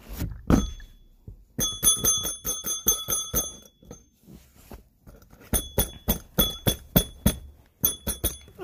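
A small bell rung in two quick runs of strikes, about four or five a second, each strike leaving a bright ringing tone; a couple of duller knocks come just before the first run.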